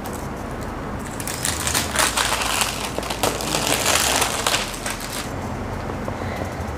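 Clear plastic shrink-wrap being torn open and pulled off a cardboard tablet box: dense crinkling and crackling from about a second in until about five seconds in, over a steady low background hum.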